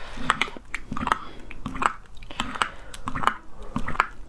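Metal spoon clinking and scraping against a glass mug while stirring a thick lotus root starch paste made with boiling water, a rhythmic clicking about two to three times a second.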